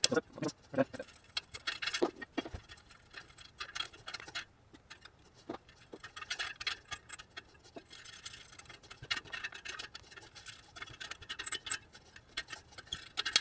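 Spokes and spoke nipples of a Sur Ron electric dirt bike's rear wheel being handled and turned by hand, making irregular light ticks and clicks with a little scratching. Loose spokes are being snugged up to a base tension.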